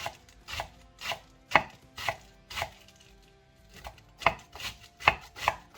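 Kitchen knife cutting thin shreds of cabbage on a cutting board: crisp, regular strokes about two a second, with a pause of about a second midway.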